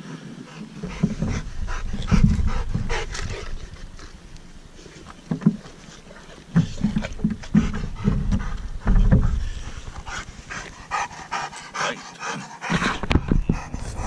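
Rottweiler panting close to the microphone, quick rapid breaths, with dull low thumps and bumps against the microphone now and then.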